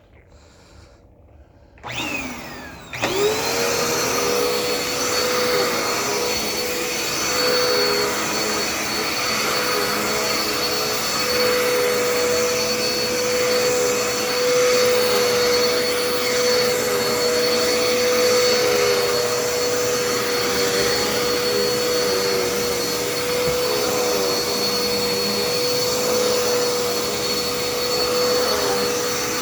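Dirt Devil Endura Reach upright vacuum cleaner switched on about three seconds in, its motor spinning up within a second to a steady high whine, then running continuously while vacuuming the floor.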